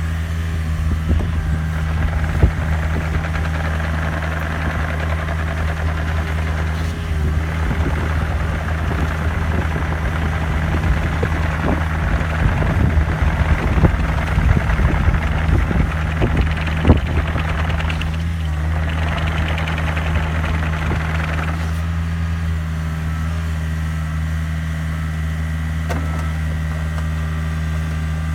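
Diesel engine of a 2006 Takeuchi TB145 mini excavator running, working with a higher whine and scattered metal clanks through the middle, strongest about three quarters of the way in. It then drops back to a steady idle.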